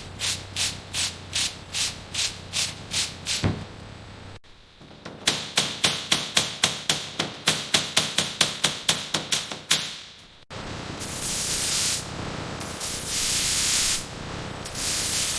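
Rhythmic scraping or rubbing strokes, about two and a half a second, then after a short pause a faster run of about four a second. A steady hiss follows in a few long spells.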